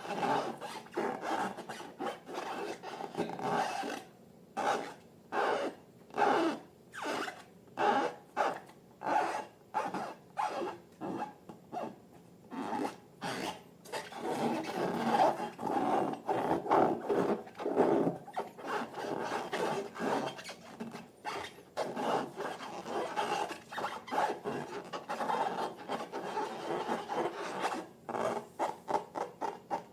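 Slime being mixed, with repeated wet rubbing strokes. For a stretch in the middle they come about two a second, and they run on more densely before and after it.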